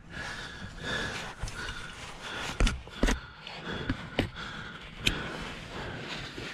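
A climber's heavy, effortful breathing while struggling up a rock chimney with a pack on. A few sharp knocks come between about two and a half and five seconds in.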